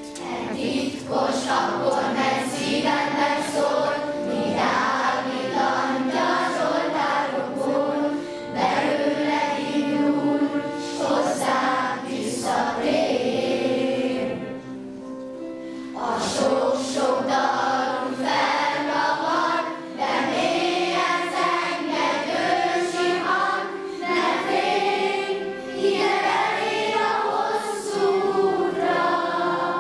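A school choir of children and teenagers sings a song in several long phrases, dipping briefly between lines.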